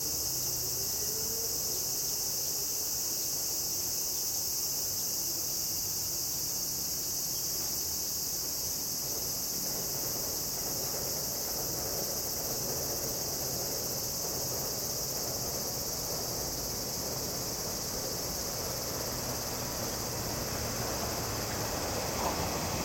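Steady high-pitched buzzing chorus of summer insects, with the low rumble of an approaching 485-series electric train growing over the last few seconds.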